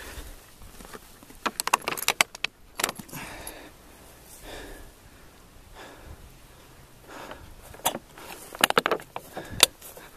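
Clicks and rattles of a backpack and water bottle being handled, in two clusters: one about two seconds in and another near the end.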